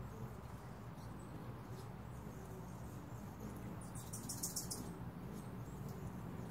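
Hummingbirds calling with high, squeaky chips, with a quick burst of rapid high chatter about four seconds in as they chase around a feeder, over a steady low background rumble.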